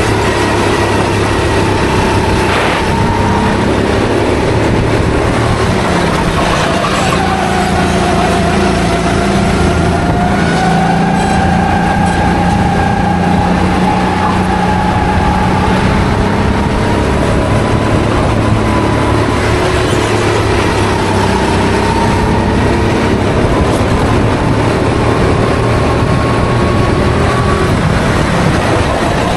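A Sodi rental kart's four-stroke engine from onboard at race pace, its pitch dropping into corners and climbing again as the throttle opens.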